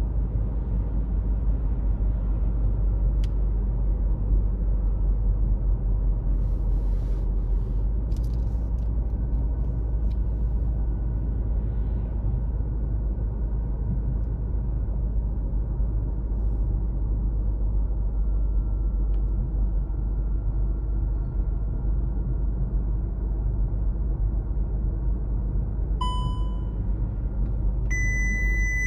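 Car driving along a road: a steady low rumble of engine and tyres. Near the end come two short electronic beeps, the second higher-pitched than the first.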